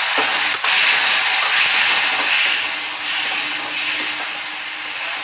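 Chopped tomatoes hitting hot mustard oil and fried onions in a kadhai: a loud sizzling hiss of steam that swells about half a second in and eases a little as the mix is stirred with a spatula.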